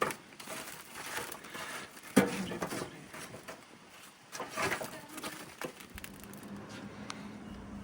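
Irregular handling noises, knocks and rustles, the loudest a sharp knock about two seconds in, then a steady low hum from about six seconds in.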